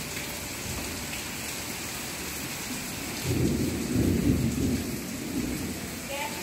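Heavy rain pouring steadily onto paving, with a low rumble of thunder swelling up about halfway through and dying away over a couple of seconds.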